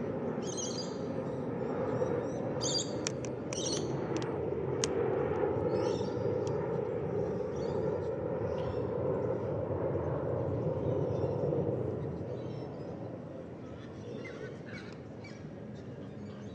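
Birds chirping in short high bursts over a steady low rumble that eases off about twelve seconds in.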